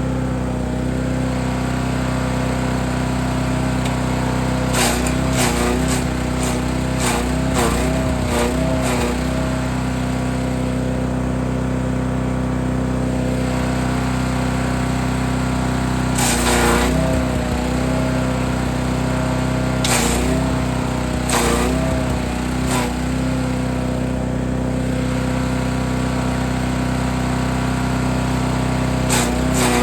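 Forest Master FM8DD wood chipper running steadily, with loud crunching bursts as branches are fed in and chipped: a cluster about five to nine seconds in, then single bursts every few seconds. The engine note dips each time the blades take a branch.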